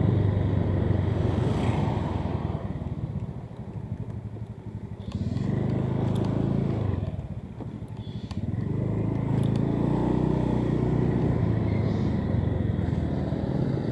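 Motorcycle engine running under the rider while riding along a street. It eases off twice, about three and seven seconds in, and picks up again each time. A few light clicks sound over it.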